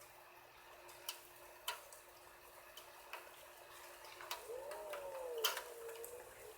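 A few scattered sharp ticks from the first raindrops as a storm's rain begins, over a faint steady hum. About four and a half seconds in, a faint wavering tone rises and falls.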